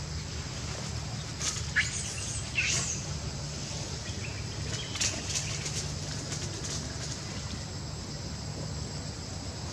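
Outdoor ambience: a steady low rumble, with a few short, high chirping calls with quick pitch sweeps about two seconds in, then a scatter of faint ticks.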